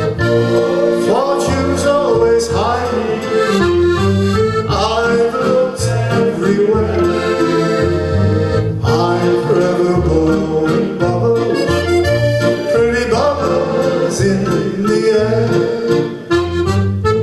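Paolo Soprani piano accordion playing an instrumental passage of an old-time singalong tune: melody on the treble keyboard over a regular bass-and-chord accompaniment from the left-hand buttons.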